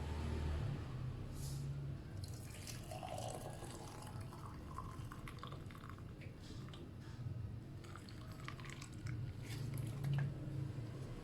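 Freshly boiled jamu (a ginger, lemongrass and lemon herbal drink) being strained into a glass: liquid trickling and dripping, with scattered small clicks.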